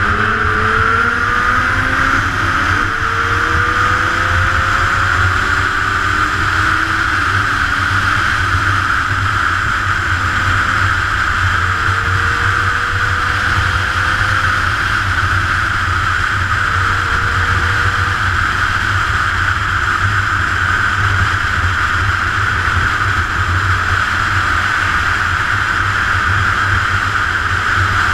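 Sport motorcycle riding fast, heard from the bike itself: a steady rush of wind and road noise, with the engine's pitch climbing in several rises over the first few seconds as it accelerates, then a few shorter rises later.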